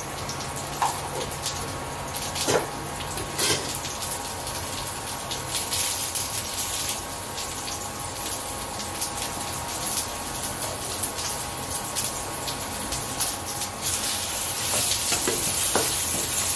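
Whole peeled potatoes sizzling steadily as they fry in oil in a nonstick kadai, with a few light knocks as they are turned in the pan.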